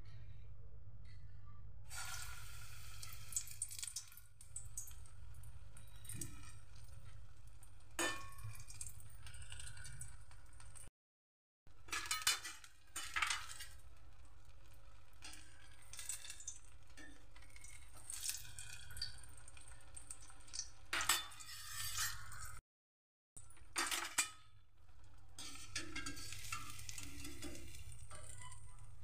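Paneer pakoras deep-frying in hot oil in a steel kadhai: the oil sizzles in stretches, broken by sharp metal clinks of a spoon against the steel batter bowl and the kadhai. A steady low hum runs underneath.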